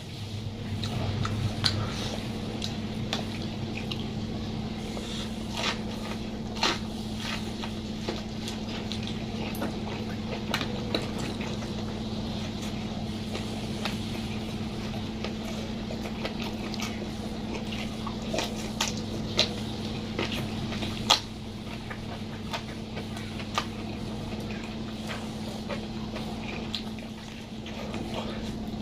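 Close-miked eating sounds: wet chewing and mouth clicks, with scattered sharp clicks, over a steady low hum.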